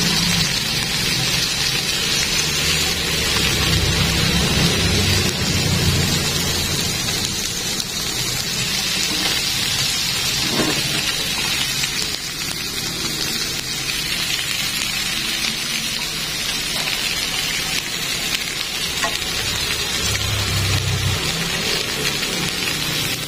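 Marinated chicken pieces and a whole fish sizzling steadily in an oiled grill pan, a continuous high frying hiss.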